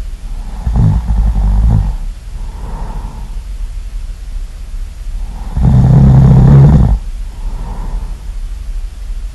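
A person snoring really loud in a slow rhythm: two long snores, each about a second or more and about five seconds apart, each followed by a softer, shorter breath.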